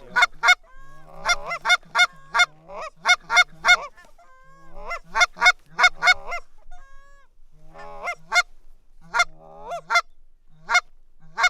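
Goose calls blown by hunters: a fast, irregular run of sharp honks and clucks, many of them starting on a low held note that breaks up into the honk. The calling pauses briefly about seven seconds in, then resumes.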